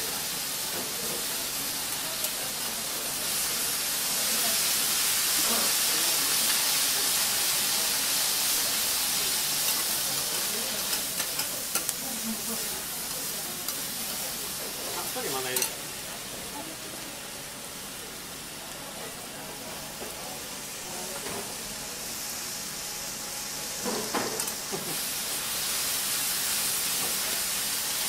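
Food sizzling on a hot steel teppanyaki griddle, with a few sharp clicks. The sizzling drops away for several seconds in the middle and comes back near the end.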